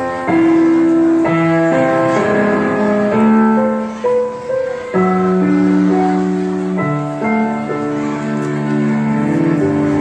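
Slow instrumental backing music with long held notes, the chord changing every second or two.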